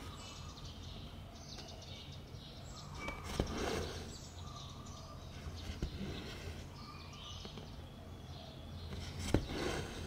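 Cross-stitching by hand: needle and thread drawn through fabric in soft swishes, with a few sharp light clicks, over a steady low hum.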